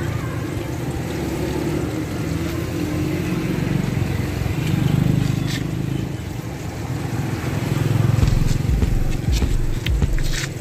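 Low, steady rumble of a motor vehicle's engine running, swelling and easing a couple of times, with a few light clicks near the end.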